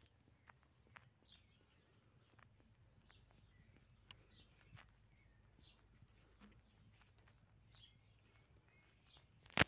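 A small bird calling outdoors with repeated short, high, hooked chirps every second or so, faint, among light rustles and clicks of leaves being brushed; a sharp click near the end is the loudest sound.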